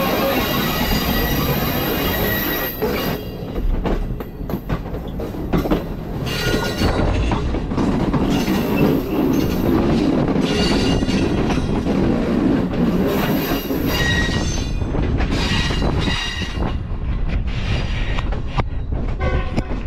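A passenger train heard from on board, running over a steady rumble, with its steel wheels squealing against the rails. The squeal comes and goes as high-pitched whines several times.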